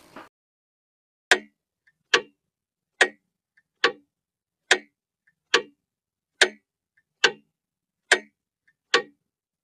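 Mechanical clock ticking: sharp, even ticks a little under a second apart, starting about a second in.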